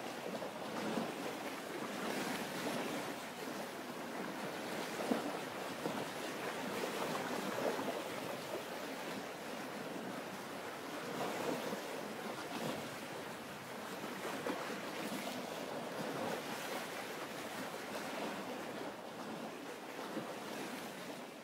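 Steady rushing of sea and wind, rising and falling in gentle swells.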